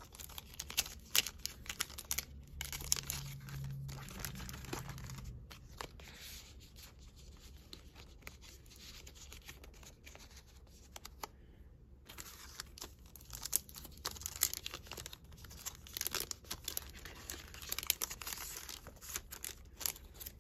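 Paper die cuts and their packaging rustling and crinkling as they are handled and sorted, with scattered small clicks and taps. The handling is busier in the first few seconds and again over the last several seconds, and quieter in between.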